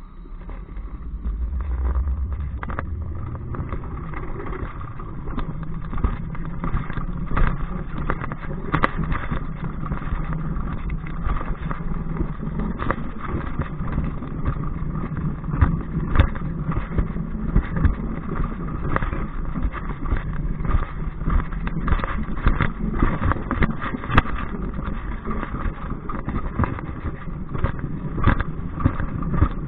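Alpine coaster sled running fast along its steel rail track, wheels rumbling steadily with frequent rattles and knocks. It picks up speed during the first couple of seconds.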